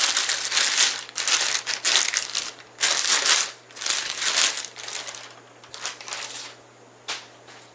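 Thin plastic bag crinkling and rustling in irregular bursts as a revolver is pulled out of it, dying down after about five seconds, with a short click near the end.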